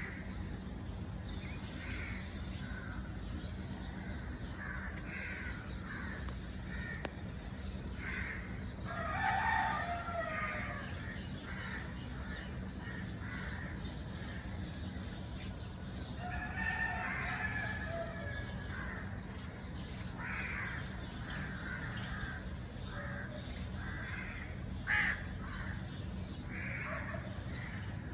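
Morning bird calls over a low steady hum: a crow caws again and again, and a rooster crows twice, about nine and about sixteen seconds in. A single sharp call stands out near the end.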